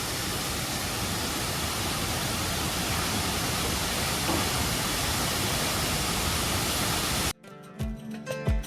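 A big waterfall rushing with a steady, even roar of falling water. About seven seconds in it cuts off abruptly and music with plucked strings and a beat begins.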